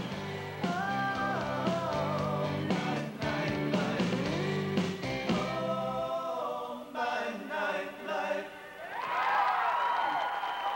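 A band playing with a singer. Steady bass and accompaniment carry the first six seconds, then the bass drops out and the voice holds long notes near the end.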